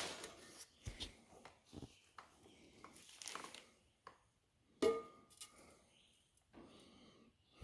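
Faint, scattered knocks and clicks of exhaust pipe and tips being handled, with one sharper knock about five seconds in that rings briefly.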